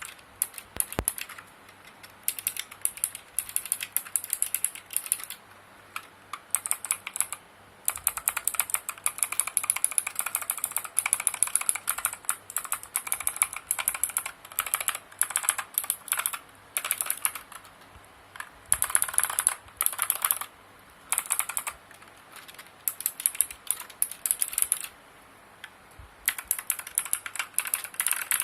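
Typing on a Signo KB-738 Infesta mechanical keyboard with optical blue switches: rapid, sharp, clicky keystrokes in bursts of a few seconds, separated by short pauses.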